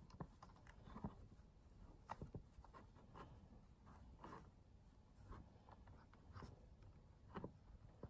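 Near silence with faint, scattered small clicks and rustles: fingers handling and twisting a thin stranded copper wire end.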